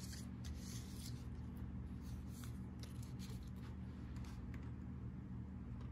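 Steady low hum of room tone, with faint light scratching and handling noises, mostly in the first half.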